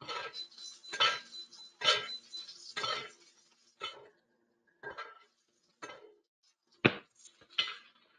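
A metal spoon scraping and clinking in a skillet about once a second as hot butter is spooned over a steak, with the loudest clink near the end.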